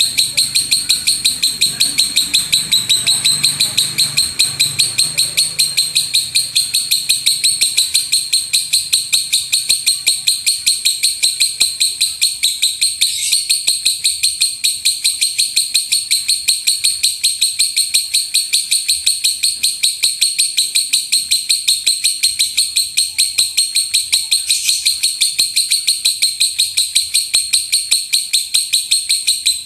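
Lovebird giving a long, unbroken run of rapid high-pitched chattering notes, the loud 'rumbling shot' (gemuruh tembakan) song, pulsing steadily at several notes a second.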